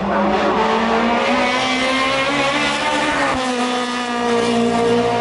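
Car engine accelerating hard, its pitch climbing through a gear and dropping suddenly at an upshift about three seconds in, then holding steady.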